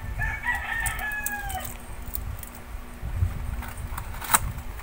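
A rooster crows once, a drawn-out call that falls away at the end, lasting about a second and a half. Cardboard and packing tape are handled with scattered clicks, and there is a sharp snap near the end.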